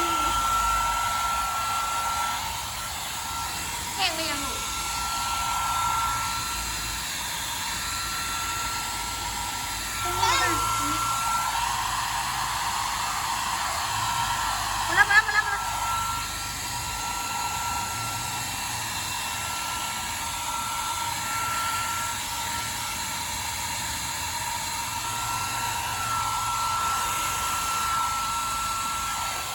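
Hair dryer running steadily with a high whine over its rushing airflow, blowing on a flood-soaked chicken to dry it. Three short falling calls break in, about 4, 10 and 15 seconds in.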